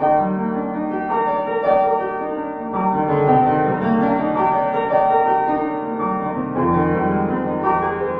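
Background music: piano playing a gentle melody with sustained chords.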